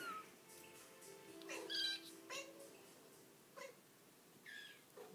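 Spotted kitten mewing in short, high-pitched cries, about four of them, the loudest about two seconds in and falling in pitch.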